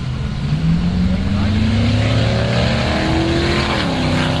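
1998 Oldsmobile LSS accelerating hard off the drag-strip start line. The engine note climbs through first gear, drops with an upshift about three and a half seconds in, then starts climbing again.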